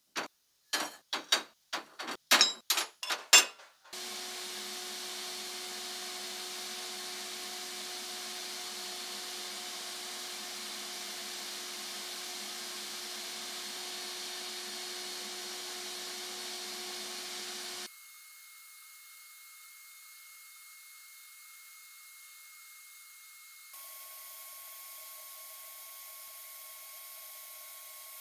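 A run of sharp knocks and clatters as metal parts are handled in a sandblasting cabinet, then the steady hiss of the blast gun spraying abrasive against the hammer drill's metal housing. The hiss drops in level about two thirds of the way through and changes once more near the end.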